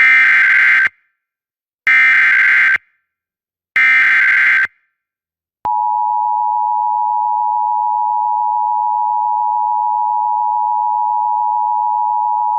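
Emergency Alert System tones. Three identical bursts of SAME digital header data, each just under a second long and about two seconds apart, are followed about six seconds in by the steady two-tone EAS attention signal (853 and 960 Hz), announcing a National Weather Service severe thunderstorm warning.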